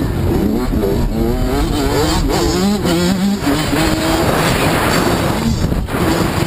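Dirt bike engine accelerating hard, its pitch climbing and dropping several times as it shifts up through the gears, heard from a camera mounted on the bike with heavy wind rumble over the microphone.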